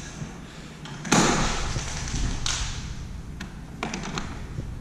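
A newly installed French door being worked: a thud about a second in, a shorter swish a little later, then a few sharp clicks of the handle and latch near the end.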